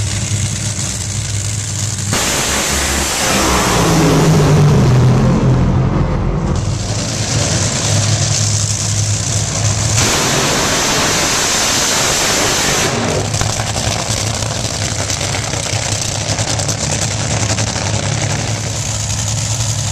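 Top Fuel dragsters' supercharged nitromethane-burning V8 engines running loud at the drag strip, with a louder stretch about four to six seconds in where the engine note rises and falls. The sound changes abruptly a few times.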